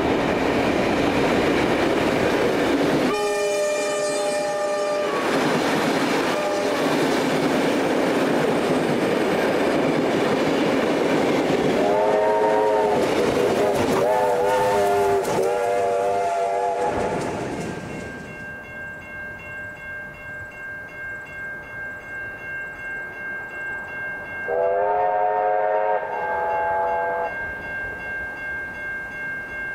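A diesel-hauled passenger train passing, led by the T-class diesel T356: engine running and wheels clacking, with a long horn blast about three seconds in and a series of shorter horn blasts between twelve and seventeen seconds. After a cut, level crossing bells ring in a steady pulse, and a train horn sounds twice near the end.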